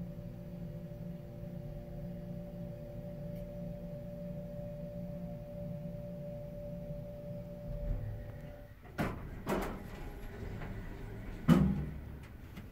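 A 1989 Dover hydraulic elevator car travels with a steady hum from its hydraulic drive. The hum stops about two thirds of the way through as the car comes to rest. A few clicks and knocks follow, then a loud thump as the doors start to slide open near the end.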